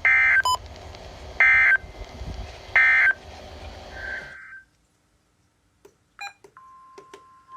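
NOAA Weather Radio emergency alert end-of-message: three short bursts of screeching digital data tones about a second and a half apart, over a background hiss that cuts off after about four seconds. Near the end a steady single-pitch warning alarm tone starts, the signal for the next alert.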